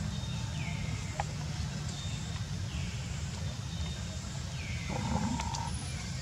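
Outdoor ambience: a steady low rumble, with a short high call falling in pitch that repeats about every two seconds, and a steady mid-pitched tone that comes in about five seconds in.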